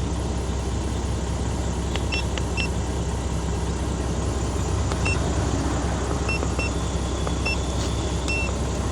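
Isuzu 6WF1 diesel truck engine idling steadily, with about seven short, high electronic beeps scattered through it.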